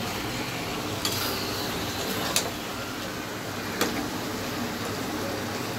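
Chicken, onion and tomato frying in a karahi while being stirred with a wooden spatula: a steady sizzle with three sharp knocks of the spatula against the pan, about a second and a half apart.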